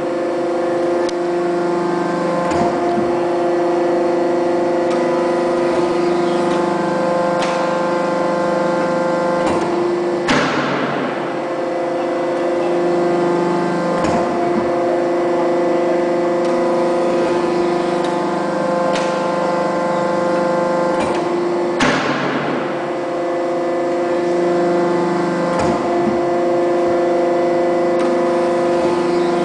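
Hydraulic power pack of a 300-ton Boldrini dishing press running with a steady hum of several tones. A lower drone joins in for long stretches as the ram works the steel blank. Twice, about 10 and 22 seconds in, a sudden sharp burst dies away over a second or so as the press cycles.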